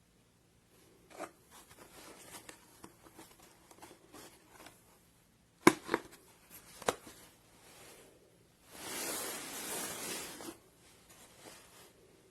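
Handling noises: scattered rustling and small clicks, a sharp knock about halfway through followed by two lighter ones, and a brief hiss lasting about a second and a half near the end.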